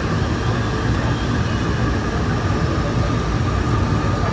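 Steady rumble of busy street traffic.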